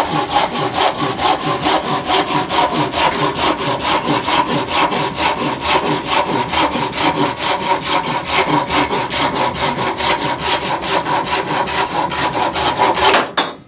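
Silky Sugoi Japanese pull saw cutting through hard sugar maple firewood, with fast, even strokes about four to five a second. The sawing stops suddenly near the end.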